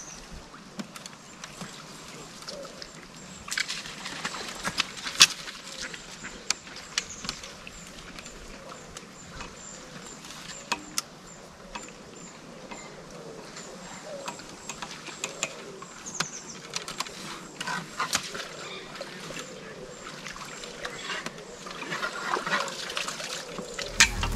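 An angler handling a fishing pole and tackle: scattered sharp clicks and light knocks, over a faint high chirping that repeats two or three times a second. Music cuts in at the very end.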